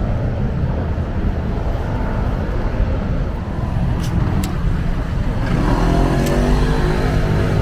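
City street traffic: a steady low rumble of cars, with a vehicle's engine rising in pitch as it accelerates over the last two seconds. A couple of sharp clicks sound around the middle.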